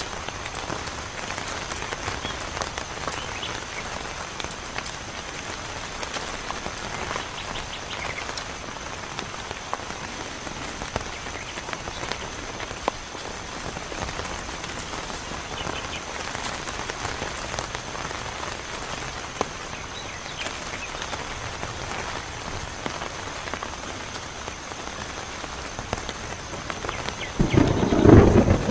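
Heavy rain falling steadily on a surface, with scattered drops ticking. Near the end a loud clap of thunder rumbles in.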